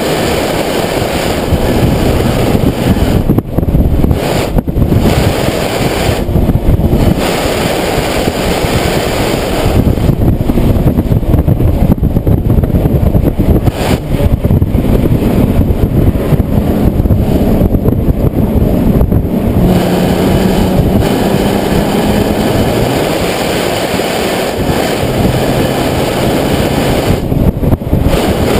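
Nissan 370Z's 3.7-litre V6 engine running loud while driving, its pitch shifting up and down with the throttle, over wind noise. The high end dips briefly a few times.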